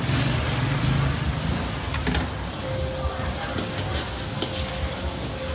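Pad thai frying in a wok on a gas burner: a steady sizzle, with a few short knocks and scrapes of a metal spatula against the wok.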